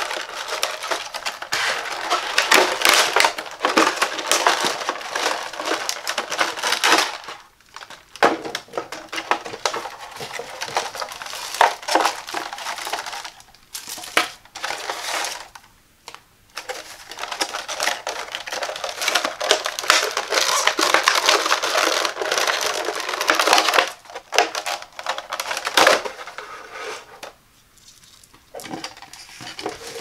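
Stiff clear plastic blister packaging crackling and crinkling as it is handled and pulled apart to free the toilet fill valve and flapper. It comes in long dense stretches broken by brief pauses.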